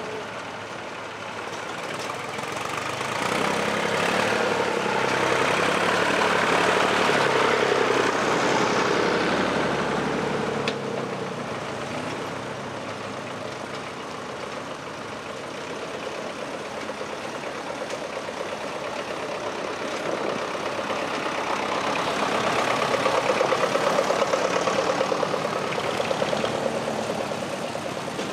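Vintage Massey Ferguson and grey Ferguson tractor engines running as the tractors climb one after another up a track out of a river ford. The engine sound swells twice as a tractor pulls past close by.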